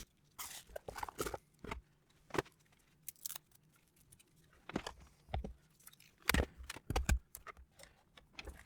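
Scattered short clicks, knocks and rustles of small objects being handled on a workbench, with quiet gaps between them and the strongest knocks near the end.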